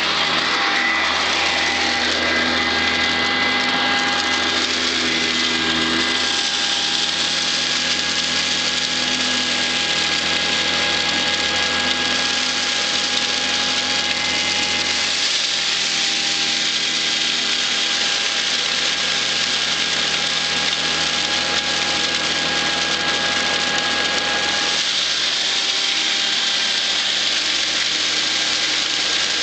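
Blue Eureka ESP upright vacuum cleaner running steadily: a constant motor whine over loud rushing air. The deeper part of the sound shifts a few times, at about six, fifteen and twenty-five seconds in.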